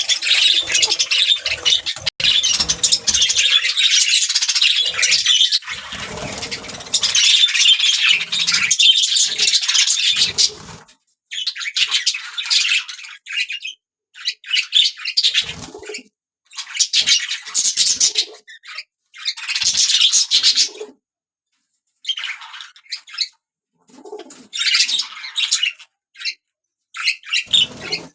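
Budgerigars chattering and warbling. A dense run of high chirps fills the first ten seconds or so, then the chatter comes in bursts of a second or two broken by short, complete silences.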